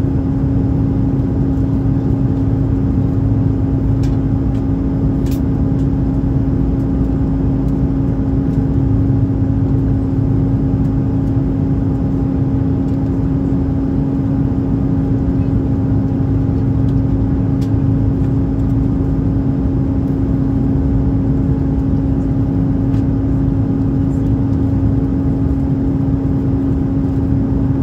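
Steady cabin noise of an Airbus A330-300 airliner in cruise: a constant rush with a steady low hum running through it.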